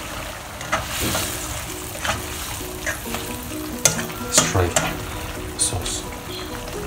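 Plastic spatula stirring a bubbling minced-pork and prawn sauce in a nonstick wok, with several scrapes and clicks against the pan over a steady sizzle.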